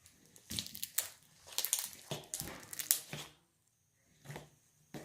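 Slime with jelly cubes mixed in being squished and poked by hand, giving a dense run of crackles and pops for about three seconds, then a pause and a couple of single clicks.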